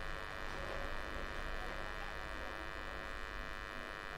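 Steady electrical hum with a buzzy edge, unchanging throughout.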